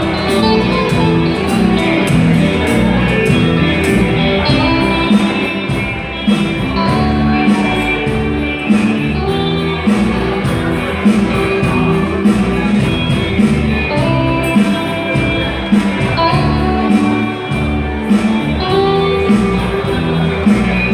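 Instrumental break of a rock song: guitar over a bass line and a steady drum beat.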